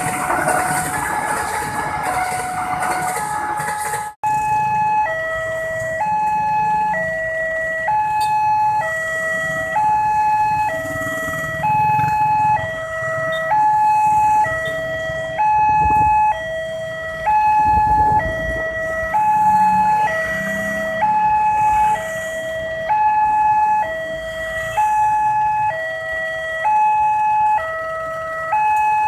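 Passenger train carriages rumbling past over a level crossing, then a level-crossing warning alarm sounding: an electronic two-tone signal alternating evenly high and low, about once a second each, with vehicle engines running beneath.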